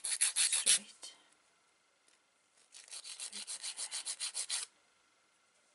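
An EDGE hand nail file rasping across the tips of long nails in quick back-and-forth strokes, about six a second. One burst of strokes stops a little under a second in, and a second burst runs from about three to four and a half seconds in.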